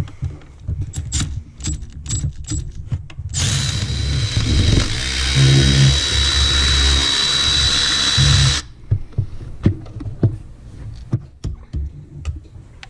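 Small clicks and knocks of tools on metal, then a powered extended-head ratchet runs for about five seconds with a steady high whine, backing out a belt tensioner bolt, and stops abruptly.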